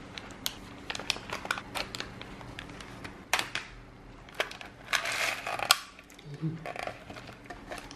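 Foil lid being peeled off a plastic Müller Mix yogurt cup, crinkling and crackling in many small clicks for the first three seconds, then coming free. About five seconds in comes the loudest part, a rattling rustle as the cup's corner compartment is bent over and the chocolate cereal pieces tumble out onto the yogurt.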